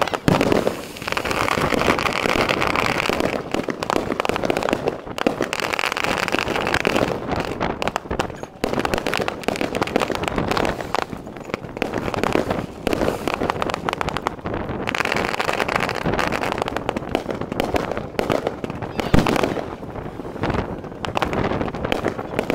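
Fireworks display: aerial shells and low rapid-fire barrages going off in quick, overlapping bangs without pause, with one louder bang about three-quarters of the way through.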